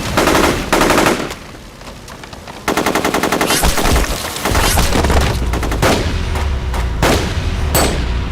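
Machine-gun fire in rapid bursts, two short ones at the start and a longer one a few seconds in, then spaced single shots over a steady low rumble.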